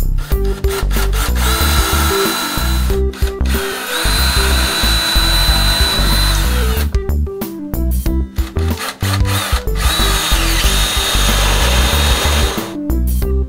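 Cordless drill boring holes into a wooden cabinet door in three runs of a few seconds each, its motor whining steadily as the bit cuts. Background music with a steady beat plays throughout.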